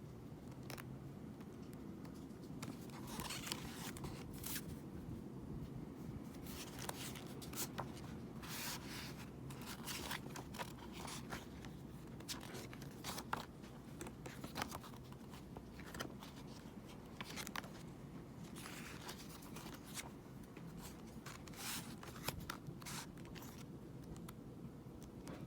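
Album packaging being handled and opened: soft, irregular rustles, crinkles and light clicks of paper and plastic over a faint steady hum.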